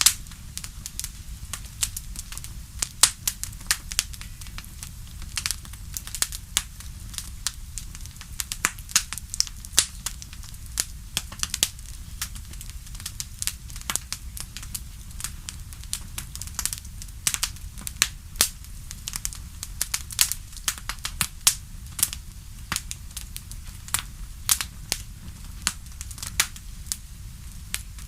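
Wood fire in a fireplace crackling: irregular sharp pops and snaps, several a second, over a steady low rumble.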